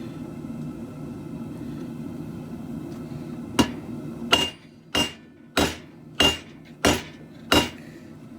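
Blacksmith's hand hammer striking hot mild steel on an anvil while forging a khopesh blade: seven even blows about two-thirds of a second apart, each with a short high ring. A steady low rumble runs under the first half, before the blows start.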